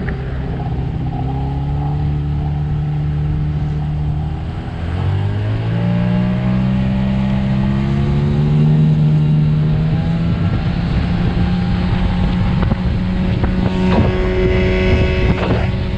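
Small outboard motor driving a small boat, its note dipping briefly about five seconds in, then rising and holding steady.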